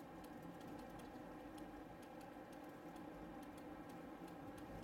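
Quiet, steady hum of a car driving along a lane, heard from inside the cabin, with scattered light ticks and clicks a few times a second.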